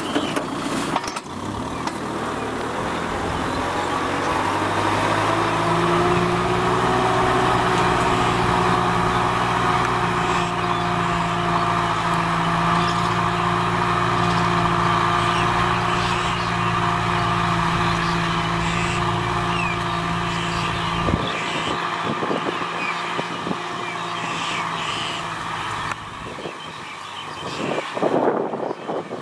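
Kubota M6040SU tractor's diesel engine running steadily under load as it pulls a disc ridging plow through dry soil. The engine note settles a few seconds in, and its deep low end drops away about two-thirds of the way through, with a few knocks near the end.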